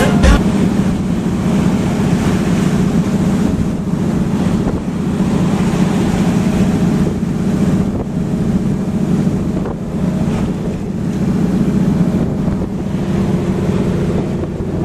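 Boat under way: its engine running steadily, with wind buffeting the microphone and water rushing past the hull.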